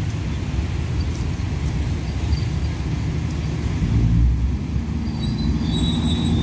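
Diesel railcar train arriving slowly, its engine and running gear giving a steady low rumble that grows a little louder as it comes closer. Faint thin high squeals come in near the end.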